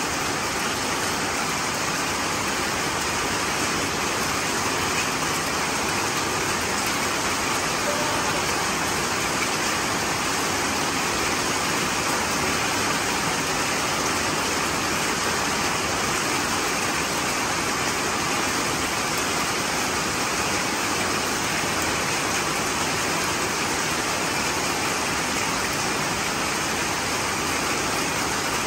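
Steady, unbroken rush of water: heavy rain pouring down, mixed with water from a garden hose splashing over a person and onto a concrete floor.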